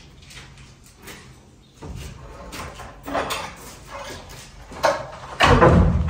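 Wooden timbers being torn out during a house demolition: scattered knocks and scrapes, then a sudden loud crash about five seconds in that carries on to the end.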